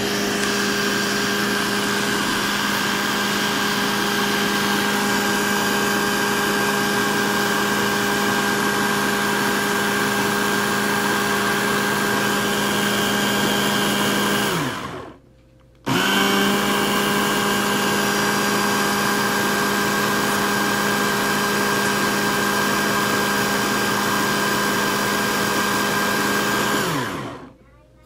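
Countertop blender motor running steadily as it blends watermelon with milk, falling in pitch and stopping about halfway through. After a pause of under a second it starts again, runs steadily, and spins down to a stop near the end.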